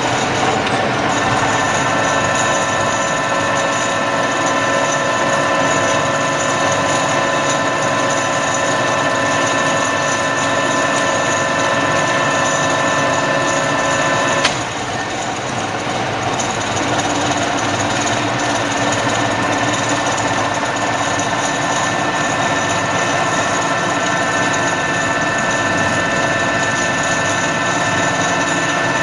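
Radial drilling machine running, with a steady mechanical noise and several whining gear tones. About halfway through there is a sharp click, the whine changes, and the tones build back over the next several seconds.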